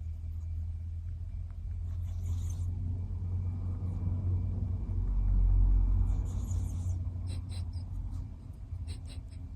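House cat snoring in deep sleep: a low rumble that swells to its loudest about halfway through and then eases. Two slow, hissy breaths come around two seconds and six seconds in. A few faint clicks follow near the end.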